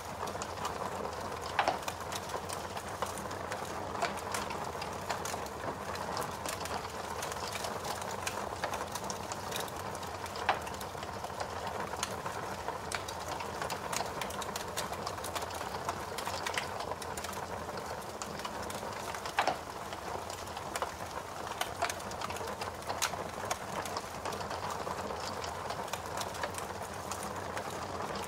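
Fire crackling: a steady rushing hiss broken by frequent irregular snaps and pops, a few of them louder and sharper.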